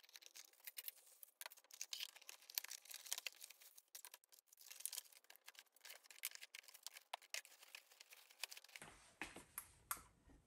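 Faint, irregular light clicks and rustles of hands setting up a computer, with a low rumble coming in near the end.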